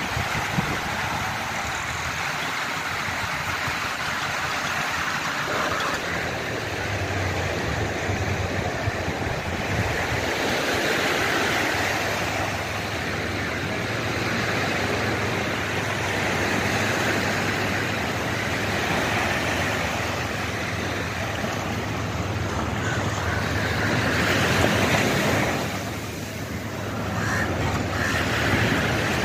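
Surf washing onto a sandy beach, joined about six seconds in by the steady low running of a tractor engine, the tractor that is set to haul a fishing boat up the sand.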